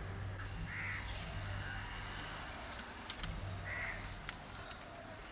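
Crows cawing a few separate times over a low steady hum.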